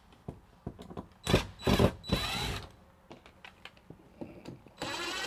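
Cordless drill/driver backing screws out of a wall access panel, running in several short bursts with small clicks of handling between them.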